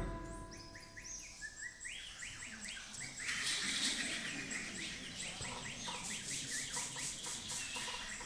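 Jungle birdsong effect: many quick overlapping chirps and whistles that rise and fall, growing denser about three seconds in, with a faint hiss above them.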